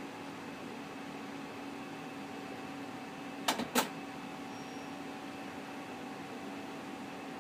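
HP Color LaserJet 2600n running its colour calibration cycle: a steady hum of the printer's motors and fan, with two sharp clicks about three and a half seconds in.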